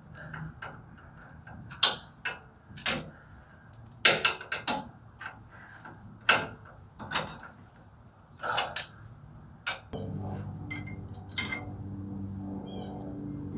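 Scattered metal clinks, knocks and ratcheting of hand tools and brake parts being handled, from unbolting a pickup's brake caliper bracket. About ten seconds in, a steady low hum starts and carries on under them.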